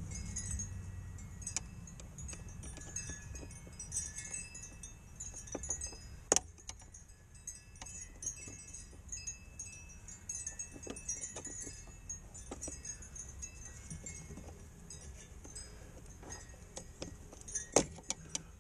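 Scattered light metallic clicks and clinks of a nut driver and hands working a worm-drive hose clamp on a fuel vent hose, with a sharper knock about six seconds in and another near the end. A faint high tinkling runs underneath.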